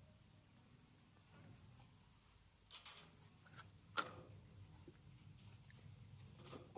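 Near silence with faint puffing on a tobacco pipe as it is lit with a match, broken by a few soft pops and clicks from the lips on the pipe stem, the sharpest about four seconds in.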